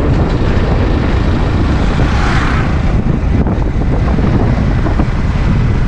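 Wind buffeting the microphone of a moving motorcycle, with the bike's engine running underneath; the hiss swells briefly about two seconds in.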